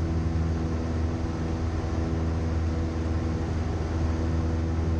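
Cessna 172M's four-cylinder Lycoming O-320 engine and propeller droning steadily in flight, heard from inside the cabin.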